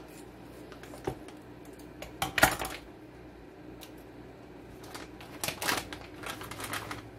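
Plastic packet of vacuum-packed sun-dried tomatoes crinkling and rustling as it is opened and handled, in a few short bursts, the loudest about two and a half seconds in.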